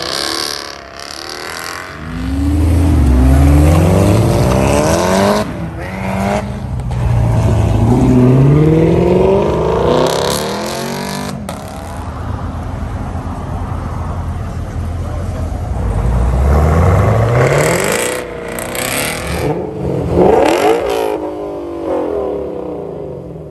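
Sports cars accelerating hard away one after another, each engine note climbing as it revs up, with sudden breaks between runs. The first is a Jaguar F-Type pulling out.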